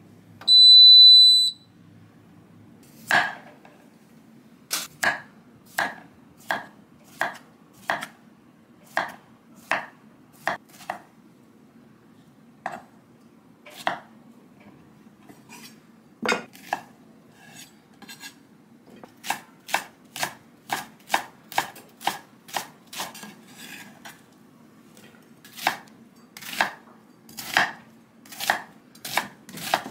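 A countertop oven's beeper gives one long, high beep about a second long, then a chef's knife chops zucchini and onion against a wooden cutting board in a long series of knocks, about one to two a second, quicker in the middle.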